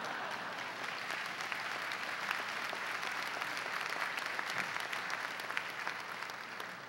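A large audience applauding, the clapping dying away near the end.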